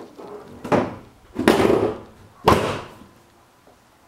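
Three heavy clunks about a second apart, the last a sharp slam with a short ring: a car's body panel being shut.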